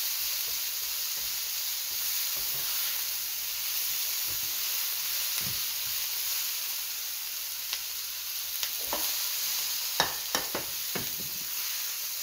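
Sliced mushrooms, bell peppers and red onion sizzling in a hot frying pan as they are stirred with a silicone spatula, the liquid cooking off. In the second half, a few sharp knocks of the spatula against the pan.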